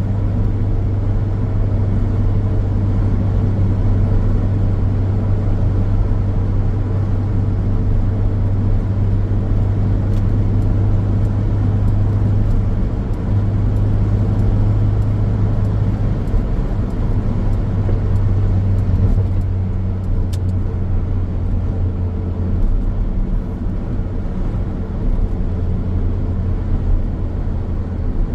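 Steady road noise of a car driving along a highway: a constant low drone of tyres and engine with an even rush above it.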